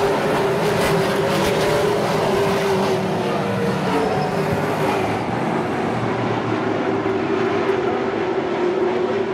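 A pack of Pro Stock race cars' V8 engines running together around a short oval, a steady, continuous drone with a wavering engine note.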